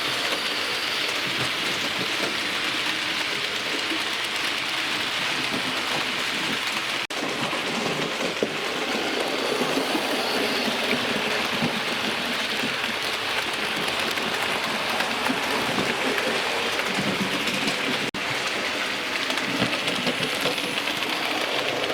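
Hornby OO gauge model train, a locomotive hauling coaches, running steadily along the track with a continuous even rushing noise of wheels on rail. The sound drops out briefly twice, about a third of the way in and again near the end.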